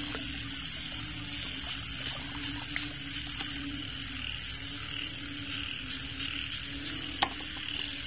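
Night chorus of frogs and crickets: a steady, pulsing low frog chorus under a continuous high insect trill, with short runs of rapid chirps twice. A sharp click about seven seconds in is the loudest sound.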